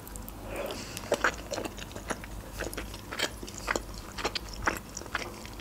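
Close-miked chewing of boiled pelmeni dumplings with sour cream: irregular wet mouth clicks and smacks, several a second.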